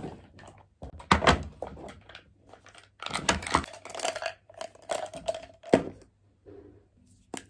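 Irregular clatter and knocks of makeup brushes in a holder and plastic containers being picked up, handled and set down on a desk, a few knocks louder than the rest.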